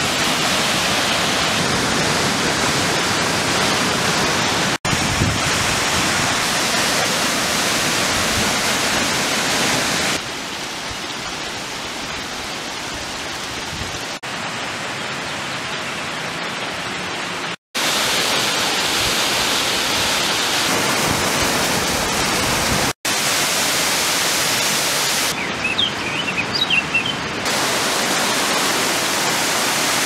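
Waterfalls rushing as a steady hiss of falling water, heard in several spliced takes. The sound drops out for an instant at each cut, and one stretch in the middle is quieter. A few brief high chirps come near the end.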